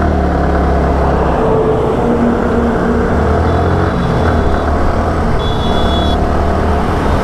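Yamaha R15 V3's single-cylinder engine pulling away from a standstill and accelerating steadily, its low note stepping as the gears change.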